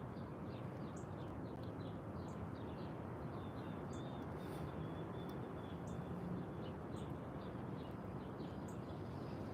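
Small birds chirping repeatedly in short calls over a steady low background noise.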